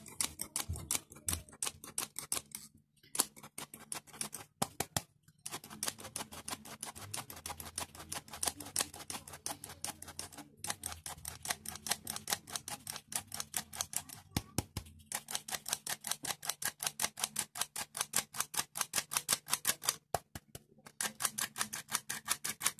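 Wire whisk stirring flour into a thick batter in a plastic bowl. Its wires click against the bowl rapidly and evenly, about four or five clicks a second, with a few short pauses.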